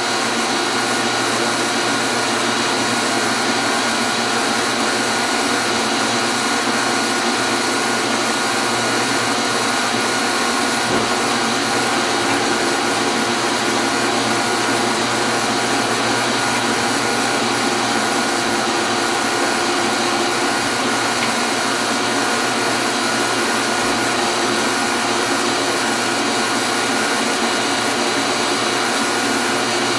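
Steady hum and whine of an electric motor running at constant speed, with no change in pitch or level.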